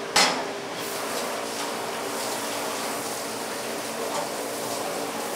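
A single sharp knock about a fifth of a second in, the loudest thing here, then a steady rushing noise with a low hum under it.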